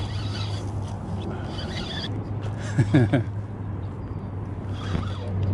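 A spinning reel is cranked in two short spells while a hooked shad is fought, over a steady low hum. A brief voice-like sound comes about three seconds in.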